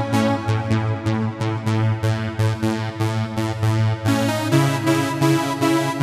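Novation MiniNova synthesizer playing its SpaceBleep preset: a fast run of short, repeating notes over a held bass, with the chord and bass note changing about four seconds in.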